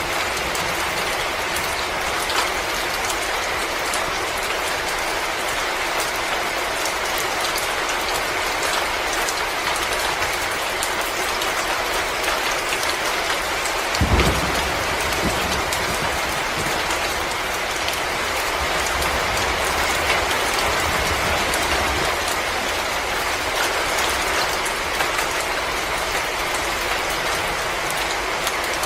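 Wood fire crackling in a fireplace: many small pops and snaps over a steady hiss, with one deeper low thud about halfway through.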